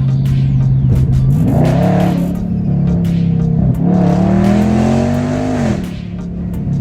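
Dodge Charger Scat Pack's 392 HEMI V8 pulling under acceleration: the engine note rises about a second in, holds, then climbs again and drops off sharply near the end.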